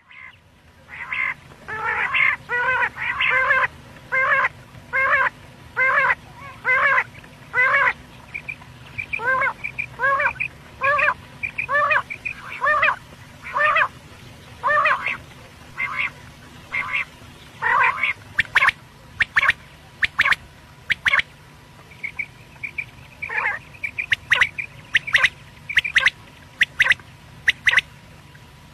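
Quail (batair) calling over and over: a long run of short, evenly spaced calls, a little more than one a second, turning into a faster series of sharp, clipped notes from about eighteen seconds in, over a faint steady low hum. It is a quail call recording of the kind played to draw quail in hunting.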